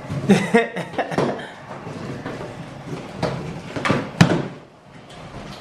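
Cardboard shipping box being torn open by hand: a series of short rips and crackles as the flaps and tape pull apart and the crumpled paper packing rustles, the sharpest rip about four seconds in.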